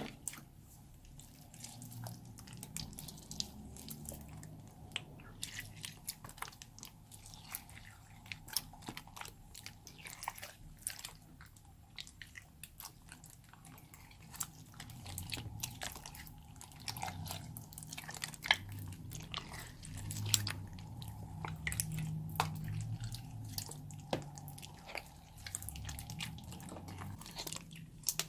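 Hands kneading and squeezing a large batch of clear glue slime as it sets with the borax-glycerin activator, giving a stream of irregular sticky clicks and squelches.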